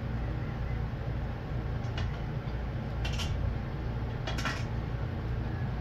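A metal spoon clinking and scraping against a steel cooking pan, three short strikes about two, three and four and a half seconds in, over a steady low hum.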